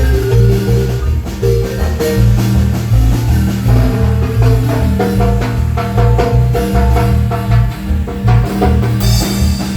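Guatemalan marimba ensemble playing a lively dance tune: quick mallet runs on the marimba over a steady, heavy bass line and drums. A brighter, hissing high sound comes in about nine seconds in.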